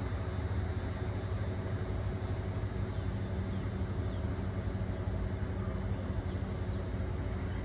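Steady hum of a Caltrain Stadler KISS electric multiple unit standing at the station platform, several low tones held even, with a few faint high chirps over it.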